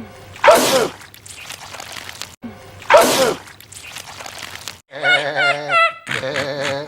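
A man sneezing loudly twice, about two and a half seconds apart: wet, exaggerated sneezes that spray goo. In the last two seconds, high cartoonish laughing in short bursts.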